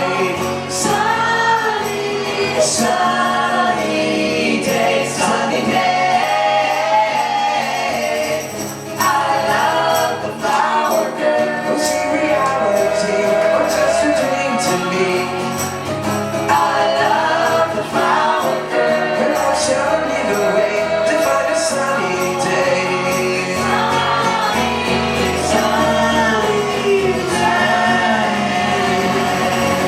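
Live pop band playing, with several voices singing in harmony over the band and high percussion hits throughout.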